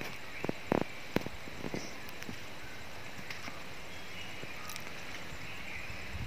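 A few faint soft taps and rustles in the first couple of seconds as chicken cutlets are set onto burger buns on paper, then only a steady low background hiss.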